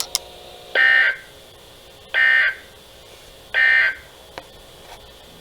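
Three short, identical bursts of buzzy digital data tones, about a second and a half apart: the Emergency Alert System (SAME) end-of-message code sent by NOAA Weather Radio, marking the close of the severe thunderstorm warning broadcast.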